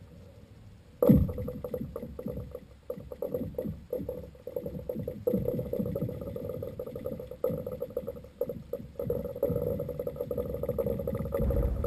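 Muffled, irregular water sloshing and knocking picked up underwater by a submerged camera, starting suddenly about a second in.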